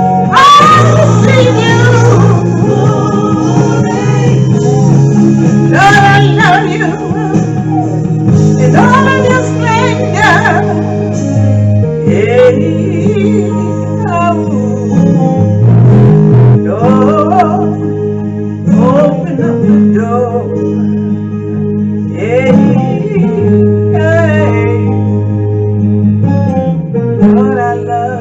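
Gospel song with guitar accompaniment and sustained chords under a singer's vocal lines, without clear words.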